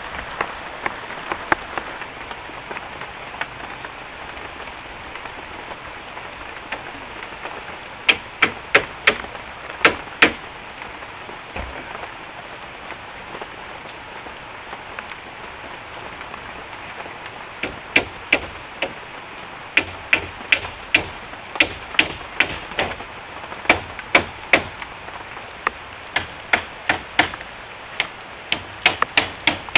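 Steady heavy rain falling, with runs of sharp knocking strikes from construction work on wood. There is a quick cluster of about seven strikes a third of the way in, then strikes about two a second through the second half.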